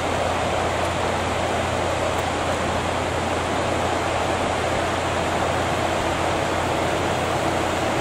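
Steady, even rushing noise with no breaks and no bird calls standing out.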